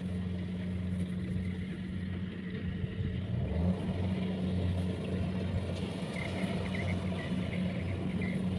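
Rice harvester's engine running steadily, a low even drone.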